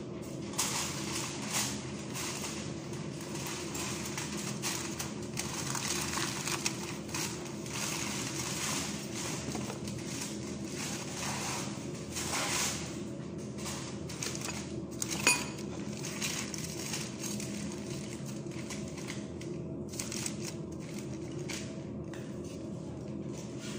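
Aluminium foil crinkling and crackling as it is handled, pressed and crimped over a baking dish, with a sharper click about fifteen seconds in, over a steady low hum.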